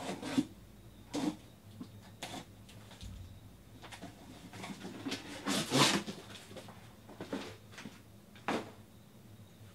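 Scattered short rustles and knocks of objects being handled, roughly one a second, with a longer, louder rustle about six seconds in.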